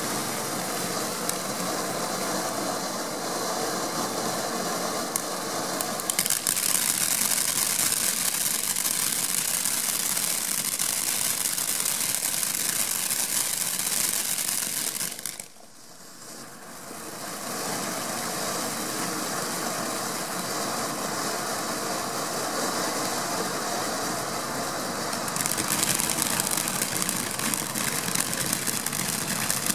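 Bare Knuckle Fighting fountain firework burning: a steady hissing rush of sparks that grows harsher about six seconds in, dips briefly about halfway, then builds up again and turns harsher near the end.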